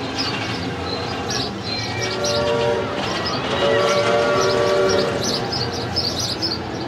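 Big Thunder Mountain mine-train roller coaster running along its track, with two held squealing tones, the second louder, about two and four seconds in. Small birds chirp repeatedly over it.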